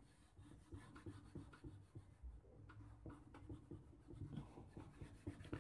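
A charcoal stick scratching faintly across drawing paper in short, irregular shading strokes, pressed on firmly to darken the tone.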